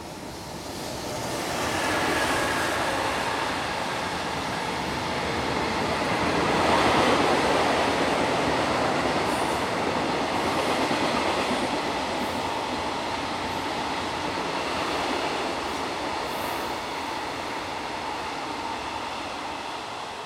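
A high-speed container freight train passes through without stopping. The wheels and wagons swell to a loud, steady rush within about two seconds, hold there through the long run of container wagons, and fade near the end.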